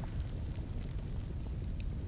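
Wood fire crackling in a fireplace: a steady low rumble of burning with scattered small, sharp pops and snaps.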